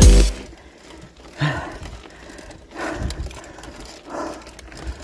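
A cyclist breathing hard while pedalling, one heavy breath about every second and a half.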